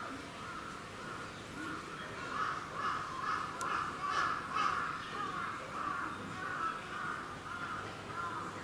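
Birds calling: a steady run of harsh calls, about two a second, loudest around the middle.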